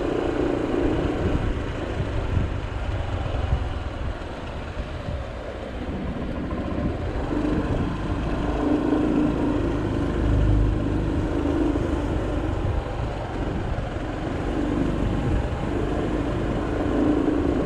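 Small motor scooter riding at low speed: a steady engine hum that swells and fades several times, over a low rumble of wind on the microphone.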